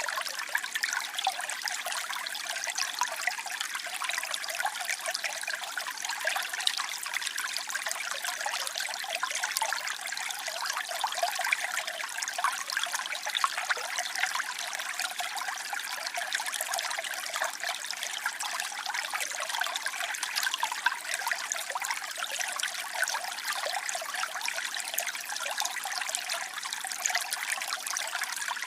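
Waterfall: water falling and splashing in a steady, unbroken rush, mostly high splashing with little deep rumble.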